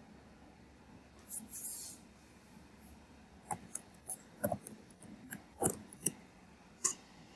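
Computer keyboard keys clicking: about ten separate keystrokes starting about three and a half seconds in, the last one a little apart from the rest. A short hiss comes about a second and a half in.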